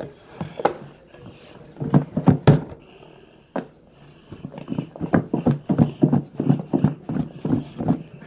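Chicken wings being shaken in flour inside a lidded plastic bowl: the pieces knock dully against the container. There is a short group of knocks about two seconds in, then a steady run of about three a second from about five seconds in to near the end.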